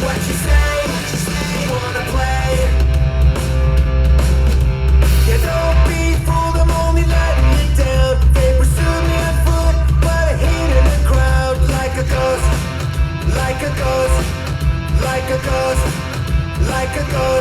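Punk-rock song with electric guitars, a steady heavy bass, drums and singing, played back through Focal CMS 65 studio monitors.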